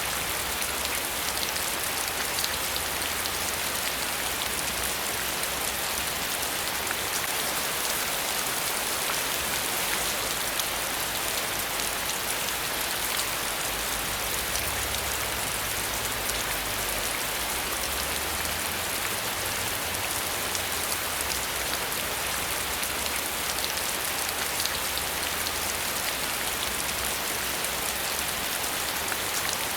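Steady rain falling on a surface, a dense even hiss with many fine drop taps.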